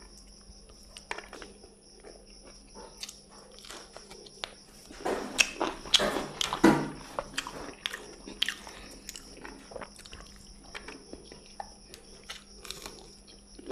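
Close-up eating sounds of a person eating rice and fried food by hand: short crunchy bites and chewing clicks, loudest in a cluster of crunches about halfway through.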